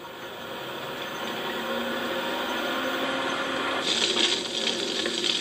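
A motor running and growing steadily louder, with a brighter hissing noise joining in about four seconds in.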